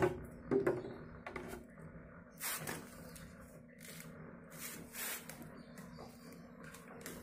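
Plastic bottle and clear airline tubing being handled as the tube is pushed into the bottle: a sharp click at the start, then scattered knocks and rustles of plastic.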